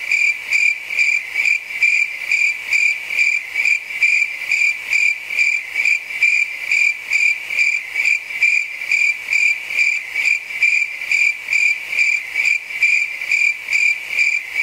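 Cricket chirping sound effect: a steady, high, regular chirp pulsing about three times a second, the comic 'crickets' cue for an awkward silence.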